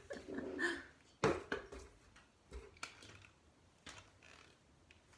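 Faint handling sounds while hair is styled with a flat iron: a sharp click about a second in, then a few light clicks and rustles that die away.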